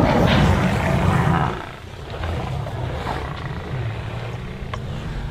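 Lion growling, loud for the first second and a half, then lower and rumbling.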